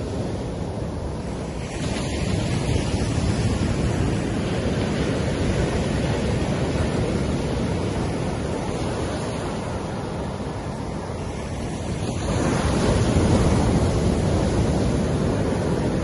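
Surf washing onto a sandy beach in a steady rush of water. A wave breaks and surges about two seconds in, and a larger one about twelve seconds in.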